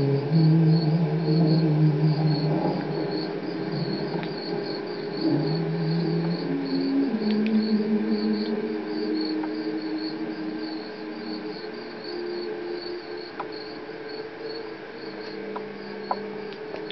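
Crickets chirping in a steady pulse, played as part of a Halloween soundscape, over low held drone notes that step to new pitches every couple of seconds.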